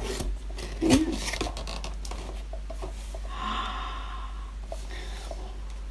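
A cardboard gift box and its packaging being handled, with light clicks and knocks, plus a short gasp of delight about a second in and a breathy exhale around the middle.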